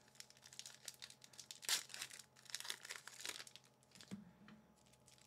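Faint rustling and sliding of a stack of Magic: The Gathering cards being handled and flipped through, with a sharper rustle about a second and a half in.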